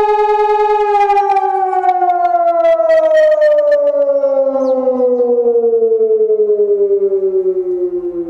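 Electronic siren, which the uploader takes for a Hörmann ECN 600, sounding the German fire-alarm signal. It holds a loud steady tone, then about a second in the pitch starts to fall and keeps sliding slowly lower as the blast winds down.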